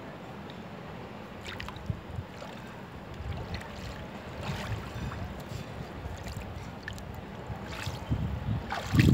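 Wind rumbling on the microphone over water washing on a beach, with a few faint clicks and splashes; the rumble grows louder near the end.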